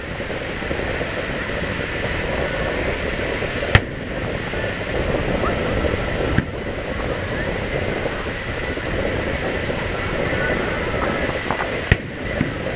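Aerial fireworks shells going off: three sharp bangs, a loud one about four seconds in, a weaker one a couple of seconds later and another loud one near the end, over the steady murmur of a large outdoor crowd.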